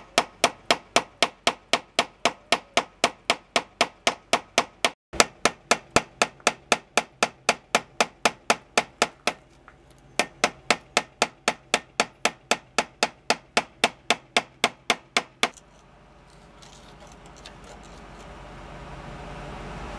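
Hammer tapping a chisel to chip away a concrete cinderblock, in steady sharp metallic clinks about three a second. The blows stop about three-quarters of the way through, leaving only a faint noise that slowly grows.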